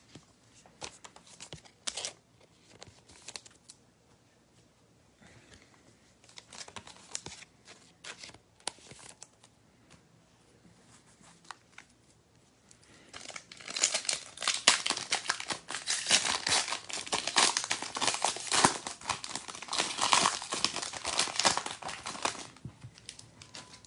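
A foil trading-card pack wrapper being torn open and crinkled in the hands, with loud, dense crinkling for about nine seconds from around the middle. Before that come scattered light rustles and clicks of cards being handled.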